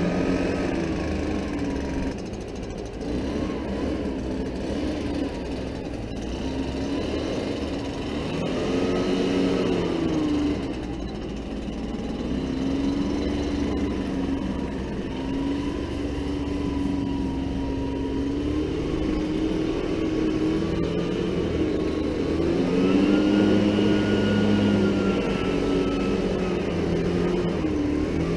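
Gas backpack leaf blower running, its engine speed repeatedly rising and falling as the throttle is worked while blowing leaves.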